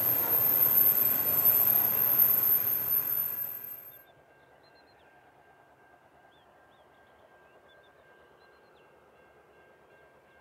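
Rail train rolling past on the track with a steady high-pitched whine over the rumble, the sound dropping away suddenly about four seconds in. Then only a very faint steady hum with a few small high chirps.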